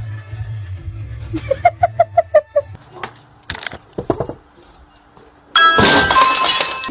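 A loud crash with clinking and ringing near the end, as of something breaking. Before it come a quick run of about seven short high-pitched notes and a few sharp knocks.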